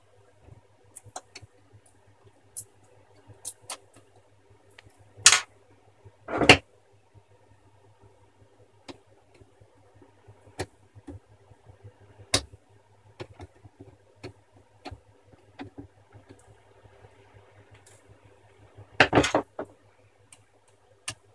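Scattered clicks and knocks of hands, pliers and small screws against the plastic and metal of a laptop screen assembly being taken apart, with louder knocks about five and six seconds in and a short clattering run near the end.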